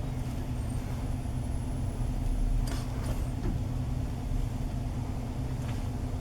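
Steady low rumble of a car running, heard from inside the cabin, with a couple of faint clicks about three seconds in.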